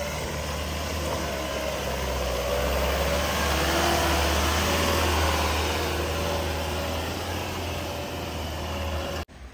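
Off-road 4x4 vehicle's engine running with a steady low drone under a broad rushing noise, swelling a little in the middle, then cut off suddenly shortly before the end.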